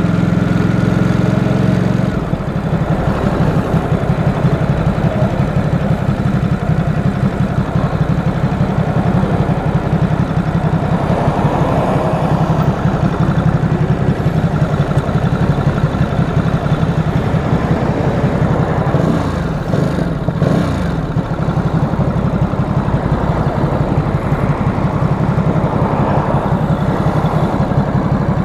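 Stock 2018 Ducati SuperSport S's 937 cc Testastretta L-twin engine running, smooth and steady for the first two seconds, then rougher and pulsing. About two-thirds of the way through, the level dips briefly as the pitch sweeps.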